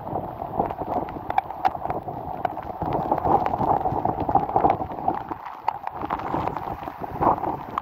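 Torrential rain driven by strong gusty wind: a steady rush with a dense run of small taps from drops striking close by, and wind buffeting the microphone.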